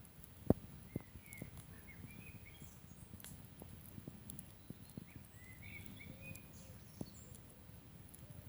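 Wood campfire crackling, with scattered sharp pops, the loudest about half a second in, over a low steady rumble. Birds call with short chirps twice in the background.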